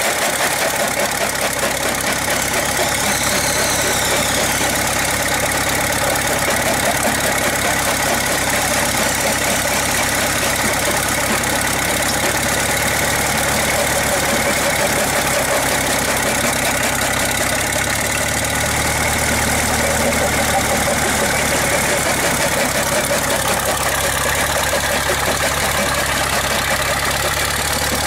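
Caterpillar diesel engine running steadily and driving a vintage Lokomo jaw rock crusher, its flywheel turning. The engine's low note grows fuller about two-thirds of the way in.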